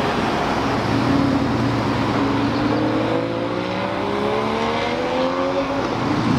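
Cars driving past on the road. From about halfway in, one car's engine is heard accelerating, its pitch rising steadily for a few seconds.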